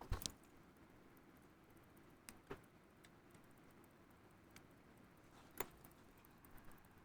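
Near silence broken by a few faint, sharp clicks of watchmaker's tools against small parts of a pocket watch movement being reassembled: a close pair right at the start, another pair about two and a half seconds in, and one about five and a half seconds in.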